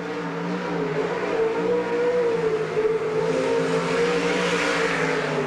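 Winged sprint car's V8 engine running hard through a lap, one car alone on the track, its pitch wavering slightly through the turn and the sound growing louder and brighter near the end.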